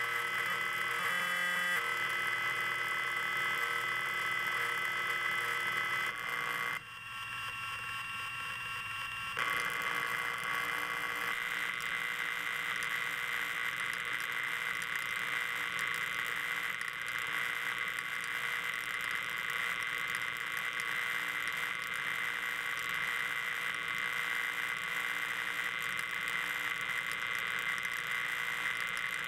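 Arduino-driven synthesizer tones played through a Dayton Audio sound exciter set in a cast-bronze sculpture: a dense electronic drone of many steady tones. It changes abruptly a few times in the first ten seconds, dropping away for a couple of seconds, then holds steady.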